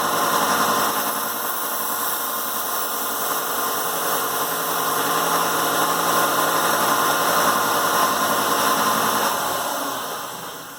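1x30 belt sander with a 220-grit belt running while a kitchen knife edge is ground on it: a steady motor whine under a grinding hiss, raising a burr on the edge. Near the end the sander winds down and fades out.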